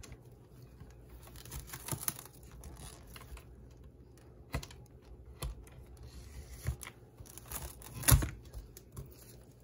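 Plastic cling wrap rustling and crinkling as it is pulled from the box, cut on the box's slide cutter and wrapped around a burrito, with scattered light clicks and taps. One louder knock near the end.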